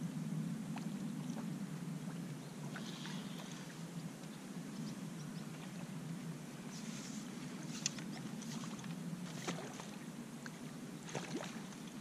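A small mirror carp splashing at the surface as it is played in on a float rod and drawn toward the landing net. Scattered light splashes and clicks come more often near the end, over a steady low rumble.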